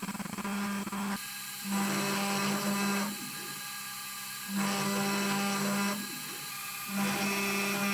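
Carvera Air desktop CNC mill milling aluminium: a steady, drill-like spindle hum that swells louder in stretches of about a second and a half, three times, with quieter spells between.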